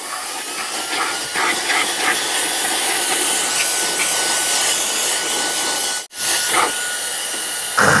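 Cordless mini air gun with a brush nozzle running at high speed: a steady rush of air over a high motor whine that rises in pitch as it spins up near the start, blowing dust out of vent slats. It cuts out for a moment about six seconds in and starts again.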